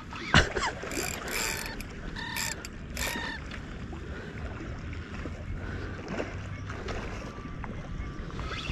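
Spinning reel being cranked under a fish's load while it comes apart, its gears grinding with several short squeals in the first few seconds, then a steadier, quieter grinding: the sign of a reel failing mid-fight.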